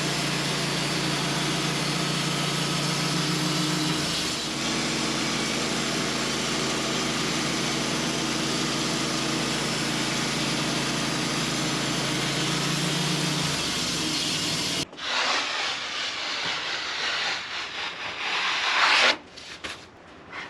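Sawmill running and cutting through a hickory log: a steady engine note under the blade's hiss. About fifteen seconds in the steady note cuts off and a rougher, uneven noise follows for a few seconds.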